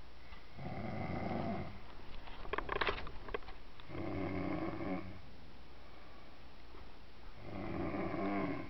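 Sleeping snoring: three long snores about three seconds apart, with a quick run of crackling clicks between the first two.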